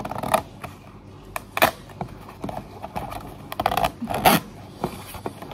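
Crinkly plastic wrapper of an instant noodle pack being handled: irregular rustling with sharp crackles, the loudest about a second and a half in and again near four seconds in.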